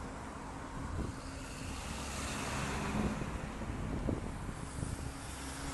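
Road traffic passing close by: tyre and engine noise swells to a peak about halfway through as a vehicle goes past, with wind noise on the microphone.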